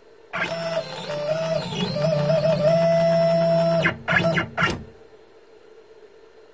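Genmitsu PROVerXL 4030 CNC's Z-axis stepper motor jogging the router carriage upward. It gives a steady whine that steps up and down in pitch for about three and a half seconds, then three short jogs, each a brief buzz.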